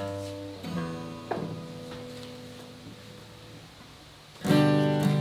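Acoustic guitar: a few chords picked one at a time and left to ring and fade, then loud, steady strumming starts about four and a half seconds in.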